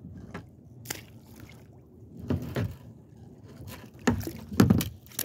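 Scattered knocks and thumps of gear against a kayak as a jug fishing line is hauled in by hand, the loudest cluster of several sharp knocks coming about four seconds in.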